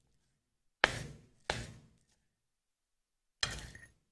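Three knife chops on a cutting board, cutting lettuce leaves: two close together about a second in, a third near the end.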